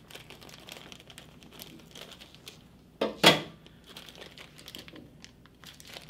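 Plastic package of brown sugar crinkling as it is handled and cut open with scissors, with one loud crackling rip about three seconds in.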